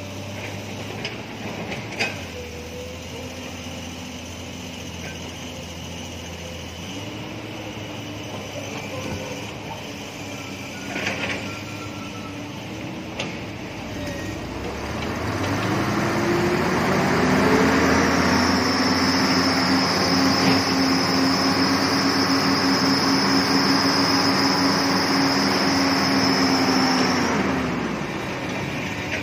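Diesel engine of a log truck hauling a full load of timber through mud. It runs at low revs for the first half, then revs up and is held at full power for about ten seconds with a high whine over it, and drops back near the end.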